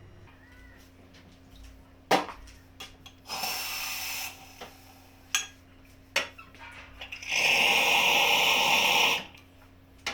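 Vintage Elektra espresso machine running under test: a steady low hum, several sharp clicks, and two bursts of hissing spray, a short one about three seconds in and a louder, longer one of about two seconds near the end.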